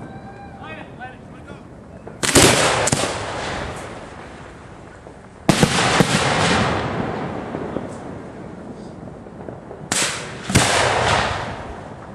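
Firework shells fired from ground mortar racks: four sudden loud bangs, the first three a few seconds apart and the last two about half a second apart. Each bang is followed by a noisy, crackling tail that dies away over a second or two.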